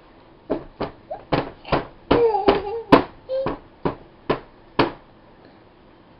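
A baby's hands slapping a plastic high-chair tray: about a dozen quick, sharp slaps over four seconds, with a short high-pitched vocal sound partway through.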